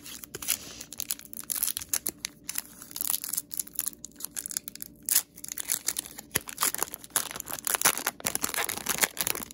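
Foil wrapper of a Pokémon trading card booster pack crinkling and tearing as it is handled and ripped open by hand, with an irregular crackle throughout.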